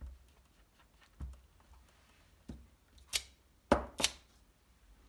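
Clear acrylic stamps and stamp block being handled on a craft table: a handful of short, sharp taps and clicks, the two loudest close together about a second before the end.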